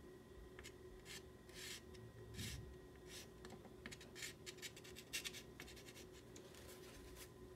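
A soft pastel stick scratching across paper in short strokes, faint: a few separate strokes, then a quick run of rapid back-and-forth strokes from about three and a half seconds in that stops near the end.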